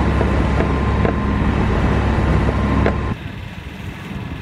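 Sailboat's Yanmar inboard diesel running steadily at cruising revs, with a few faint clicks. About three seconds in, it cuts off abruptly to quieter wind and open-air background noise.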